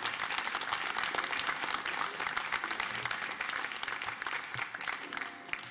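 A small audience applauding, the clapping thinning out and fading near the end.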